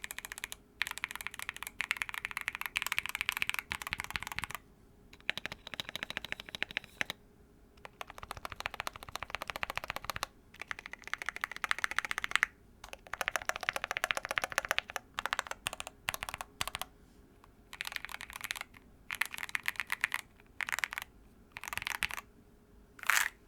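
Typing on a TOFU65 aluminum-case mechanical keyboard with Everglide Aqua King v3 switches on 67g springs and PBT keycaps: bursts of rapid clacking keystrokes broken by short pauses. One louder single clack comes near the end.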